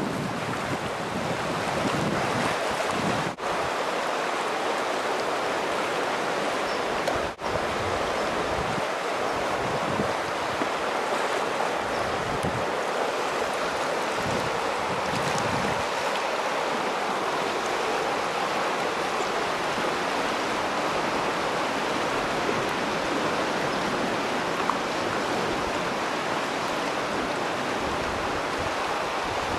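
Steady rush of fast-moving water from a tsunami surge flowing through a tidal estuary, with wind gusting on the microphone. The sound drops out for a split second twice, a few seconds in.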